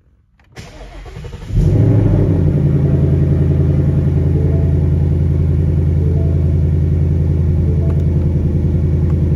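2018 Mustang GT's 5.0-litre V8 cold-starting: the starter cranks briefly about half a second in, the engine catches about a second and a half in with a short flare of revs, then settles into a steady cold idle.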